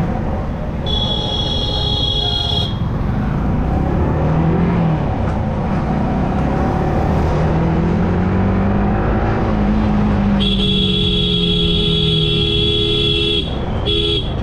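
Vehicle horn honking: a short blast about a second in, a long blast of about three seconds starting about ten seconds in, and a brief toot near the end. Underneath, a motorcycle runs steadily with wind noise, its engine pitch slowly rising and falling in the middle.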